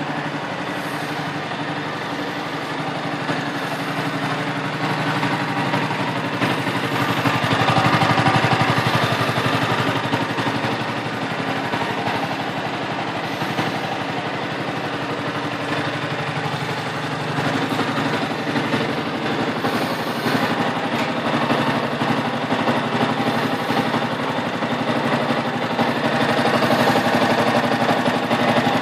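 Yamaha YZF-R125's single-cylinder four-stroke engine running on its stock exhaust, mostly at a steady idle. It gets louder for a few seconds about eight seconds in and again near the end.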